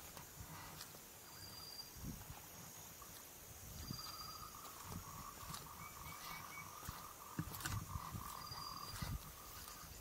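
Faint wild animal calls: a steady pulsing trill from about four seconds in to near the end, and three short high whistled notes a few seconds apart, over scattered low thumps.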